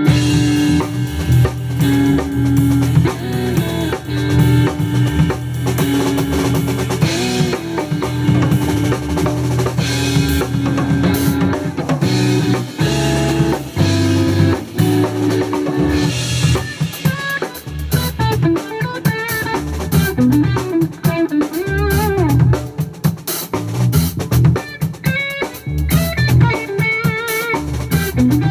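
Live jazz-fusion trio of drum kit, bass guitar and electric guitar playing together. A steady groove of drums and a sustained bass line; about halfway through, the drums get busier and a higher guitar line with wavering notes comes in.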